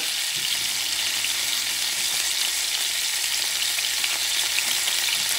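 A thick slice of bison heart searing in hot olive oil in a frying pan: a steady, even sizzle.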